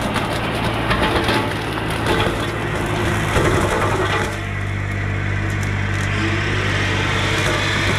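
Bobcat E35 mini excavator's diesel engine running steadily while its hydraulic Baumalight brush-cutter head shreds a small tree, with dense crackling and splintering of wood. About four seconds in the crackling eases, leaving the engine and cutter running.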